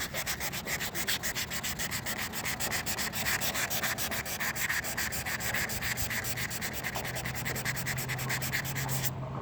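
Sandpaper being rubbed by hand over a van's fender flare in quick, even back-and-forth strokes, stopping abruptly near the end.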